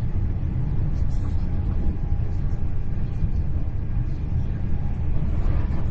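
Steady low rumble of a Hitachi Class 800 Intercity Express Train running at speed, heard from inside the passenger coach.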